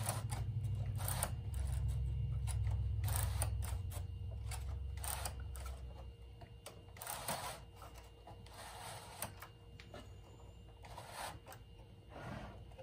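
Metal needles of a knitting machine's needle bed clicking and rattling under a pressing hand as a new sponge bar is pushed along beneath them, with a low rubbing rumble through the first half.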